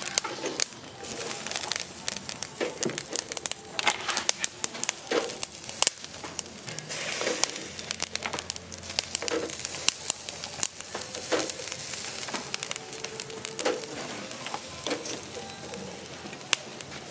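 Whole snails in their shells grilling on a wire rack over charcoal: a steady sizzle with frequent, irregular sharp crackles and pops.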